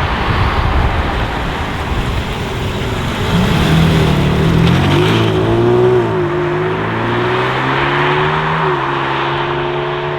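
BMW M3 G80 Competition's twin-turbo straight-six through an R44 Performance aftermarket exhaust, loud under throttle. For about three seconds it is a rough rumble, then a clear engine note climbs and dips in pitch as it revs.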